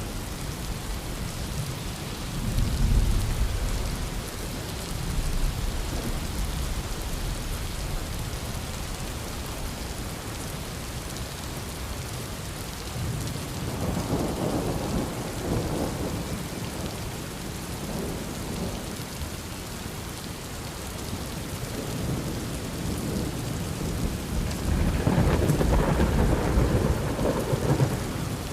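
Heavy thunderstorm: steady rain hissing, with rolling thunder rumbling in waves, a short rumble near the start, a longer one about halfway, and the loudest, longest roll near the end.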